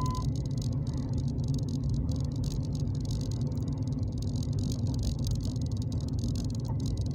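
Steady low engine and road rumble inside a moving car's cabin, with light rattling and clicking over it. A steady high beep cuts off just after the start.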